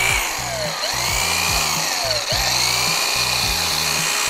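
Electric hedge trimmer running as it cuts through bush branches, under background music with a steady beat.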